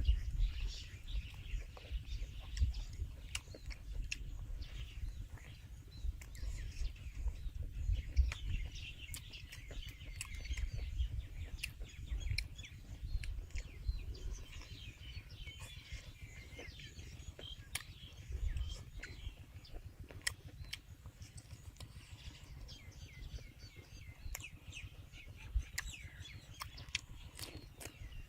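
Small birds chirping continually, over a low rumble and scattered sharp clicks.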